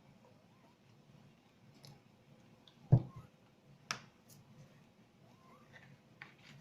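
Spoon stirring thick slime in a bowl: faint scattered clicks, with a dull thump about three seconds in and a sharp click a second later.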